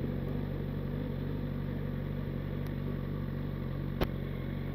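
Suzuki GSX-S1000 motorcycle's inline-four engine idling steadily, with a single sharp click about four seconds in.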